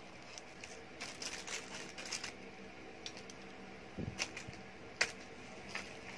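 Plastic-wrapped kitchen accessories being handled and set down: crinkling of packaging, then a few light clicks and taps, with a soft knock about four seconds in and a sharper click about a second later.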